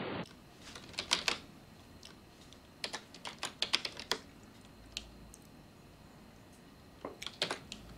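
Typing on a computer keyboard: several short runs of quick key clicks separated by pauses.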